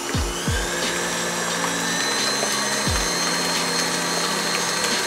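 KitchenAid Heavy Duty stand mixer running at a steady speed, its motor giving an even whine as it beats choux paste in the steel bowl. Background music with low falling tones plays under it.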